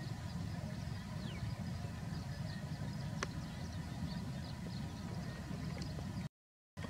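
Outdoor background noise: a steady low rumble with faint high chirps scattered through it and a single sharp click about three seconds in. The sound cuts out briefly near the end.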